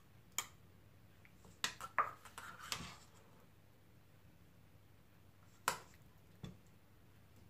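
A spoon clinking and knocking against a stainless-steel bowl and a small glass as diced tomato is spooned into the glass: several light clicks, with a pause of about three seconds in the middle.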